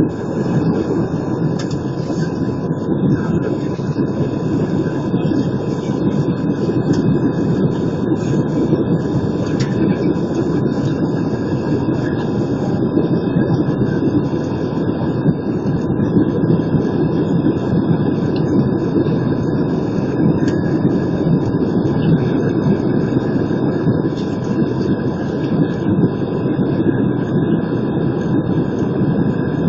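Steady cabin roar of an Airbus A320 climbing after takeoff, heard from inside the cabin: a deep, even rush of engine and airflow noise with a faint steady whine above it.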